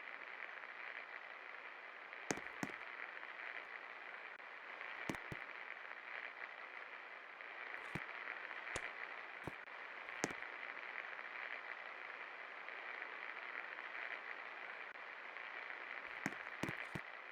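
56-inch Best Electric Works Galaxy II ceiling fan running with a steady whooshing hiss, broken by scattered sharp clicks and crackles.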